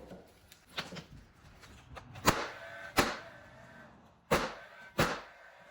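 Pneumatic nail gun firing four times, in two pairs about 0.7 s apart, each shot a sharp crack with a short ring after it, fastening wood window trim.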